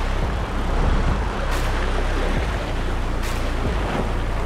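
Wind rumbling on the microphone over sea water washing against shoreline rocks, with a short hissing swish about every second and a half.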